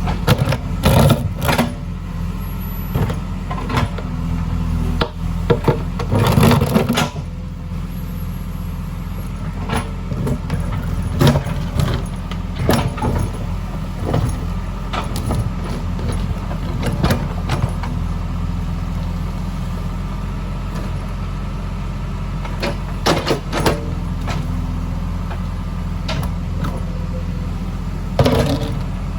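JCB 3DX backhoe loader's diesel engine running steadily, with frequent irregular sharp knocks over the engine sound.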